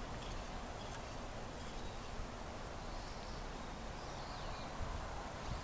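Outdoor garden ambience: a steady background hiss with a few faint high bird chirps partway through and the odd soft click.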